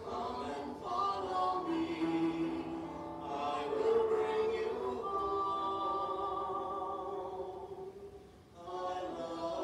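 Slow choral singing of a hymn with long held notes; one phrase dies away and the next begins near the end.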